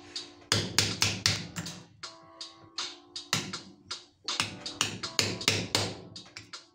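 Hammer tapping a steel punch against the slip-ring end of a Valeo alternator rotor held in a vise: three bursts of quick metal-on-metal strikes. The strikes work the old slip ring off the rotor shaft.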